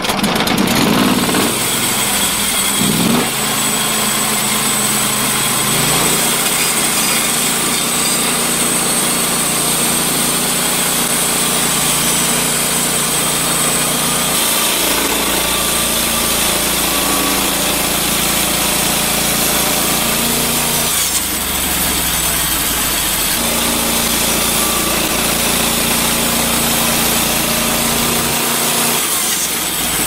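Norwood LumberPro HD36 portable band sawmill cutting a squared log: its engine runs steadily as the band blade saws through the wood.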